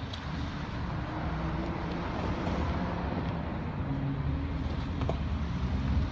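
Car running, with steady low engine and road rumble heard from inside the cabin and a short click right at the start.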